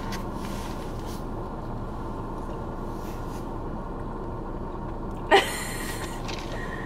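Steady low hum of a car cabin. About five seconds in comes one short, sharp breath sound, such as a quick laugh or gasp.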